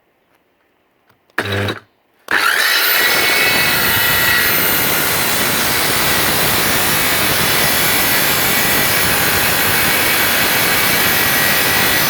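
STERN CS 185-C+ handheld electric circular saw: a short burst about a second and a half in, then the motor spins up with a rising whine about two seconds in and runs steadily as the blade cuts through a wooden board. The owner calls the blade dull.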